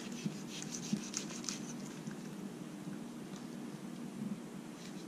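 Faint handling sounds of a puffer fish's organs being pulled out by hand on a wooden cutting board: a few soft ticks in the first second and a half, then little but a low steady hum.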